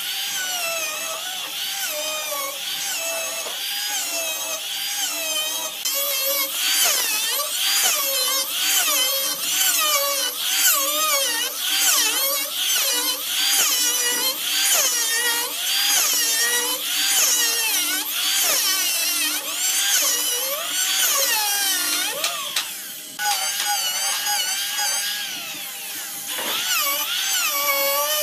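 Electric hand planer running while it shaves the top of a thick hardwood slab. Its motor whine sags in pitch and recovers over and over, about once a second through the middle, as the blade bites into the wood on each push.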